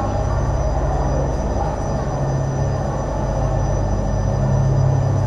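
Steady mechanical rumble and low hum of the Hakone Ropeway station's gondola machinery running: the cable drive and the rows of rubber-tyred conveyor wheels that carry the cabins through the station.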